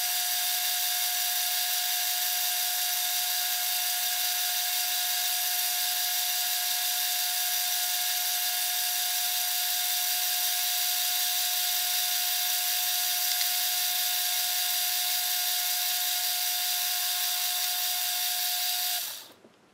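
Metal lathe parting off a thick-walled aluminium tube: a steady, high whine with one strong tone over the cutting noise, stopping abruptly near the end as the cut is finished and the lathe stops.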